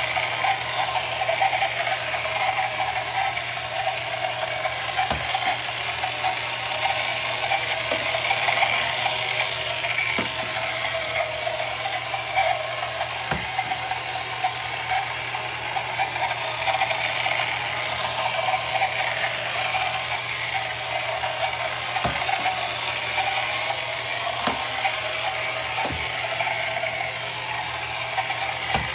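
Toy outboard motor of a 1968 Ideal Motorific Boaterific Avenger boat running steadily in a bathtub, its small electric motor and gears turning the propeller. A few faint knocks come through as the hull bumps the tub wall.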